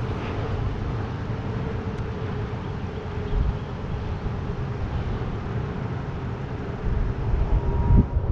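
Wind rumbling on the camera's microphone, with stronger gusts about three and a half seconds in and near the end, over a faint steady hum.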